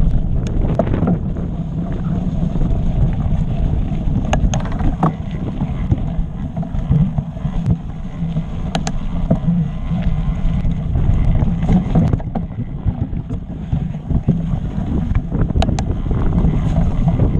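Wind buffeting the microphone and a steady rumble of mountain bike tyres rolling over a rocky trail, with a few sharp clicks and rattles from the bike over bumps.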